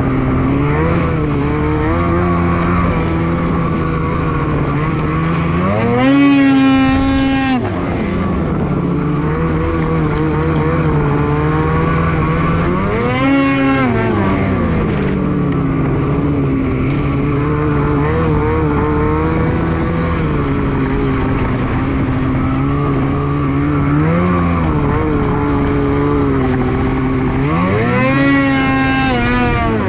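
2021 Polaris Switchback Assault 850 snowmobile's two-stroke twin engine running at speed. It revs up sharply and settles back three times: about six seconds in, around thirteen seconds, and near the end.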